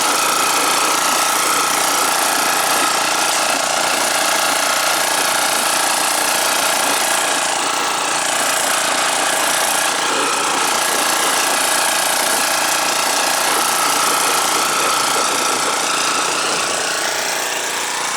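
1987 Honda lawnmower's small four-stroke engine running steadily at high throttle while mowing.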